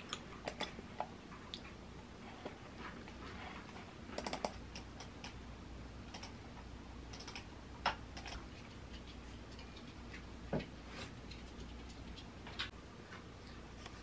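Light, irregular clicks of typing on a laptop keyboard and clicking a computer mouse, with a quick run of taps about four seconds in.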